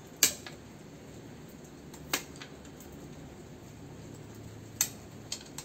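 Side cutters snapping through plastic on the circuit board of an HID lighting ballast: a sharp crack about a quarter second in, further snaps about two seconds and nearly five seconds in, and two small clicks near the end.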